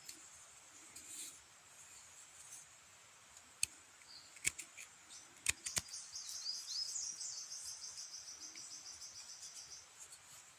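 A few sharp clicks, then a songbird's rapid, high, evenly pulsed trill lasting about four seconds.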